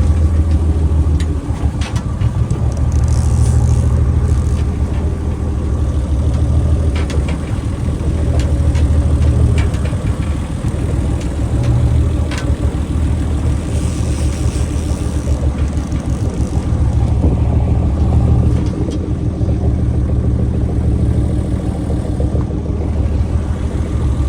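Boat engine idling, a steady low rumble that swells and dips every few seconds, with a few faint clicks over it.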